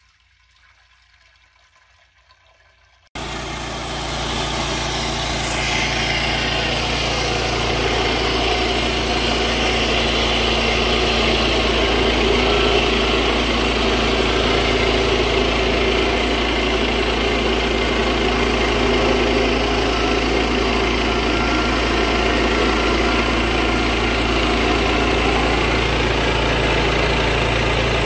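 Water trickling faintly into the blade-lube tank. About three seconds in it cuts suddenly to the sawmill's 9.5 hp gasoline engine running steadily at speed, driving the band blade along a log in the mill's first cut.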